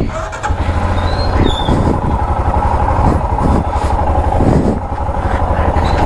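Royal Enfield Himalayan's single-cylinder engine running with a low, pulsing beat as the bike rides slowly along with a snapped clutch cable.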